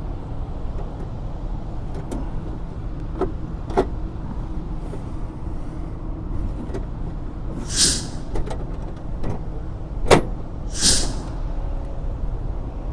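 Steady low rumble of a running Daikin rooftop HVAC unit, with a faint steady hum. Several sharp clicks and knocks sound through it, with the loudest about ten seconds in, and there are two short hissing swishes about 8 and 11 seconds in.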